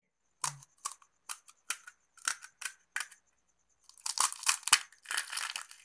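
Crisp fried semolina pani puri shells cracking: a string of single sharp snaps about every half second, then a dense, louder crunching from about four seconds in as a puri is crushed in the hand.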